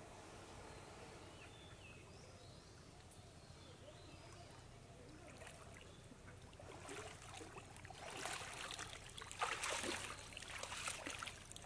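Pond water splashing and sloshing as a man wades through waist-deep water, starting about halfway through and loudest near the end.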